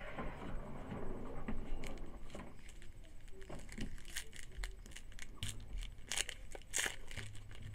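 A series of short, sharp crinkles and crackles from a foil trading-card pack being torn open, with the cards being handled.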